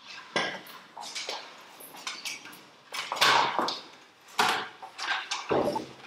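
Metal kick scooters clattering and knocking on a hard floor, with footsteps: a string of irregular clatters.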